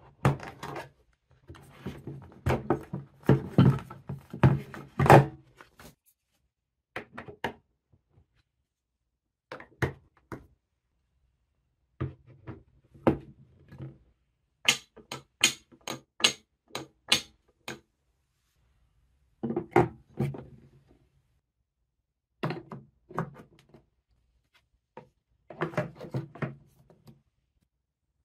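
Wooden marble-run track pieces and plastic building blocks being handled and set together: irregular clusters of clacks and thunks with short pauses, and a quick run of sharp clicks about halfway through.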